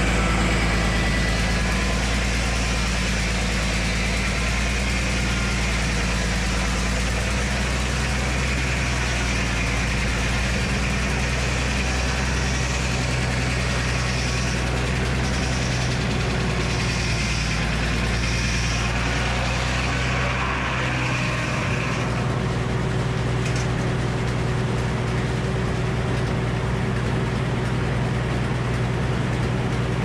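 Old Frick sawmill's circular saw cutting through a locust log, over the steady hum of the engine that drives it. About two-thirds of the way through, the cutting sound drops away and the engine and blade run on unloaded.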